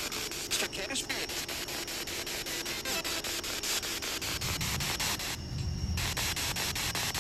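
SB7 spirit box sweeping through radio stations: steady static hiss chopped by rapid, even clicks several times a second, with brief snatches of broadcast sound. A low rumble comes in past the middle for about two seconds.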